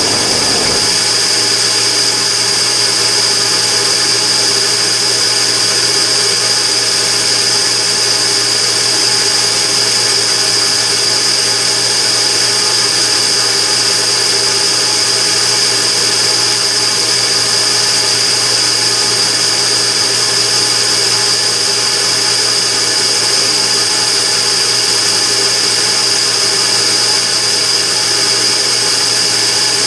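Immersion-tube burner firing, a steady rushing noise with a loud, unwavering high-pitched tone on top: the abnormal noise (異音) the burner is making.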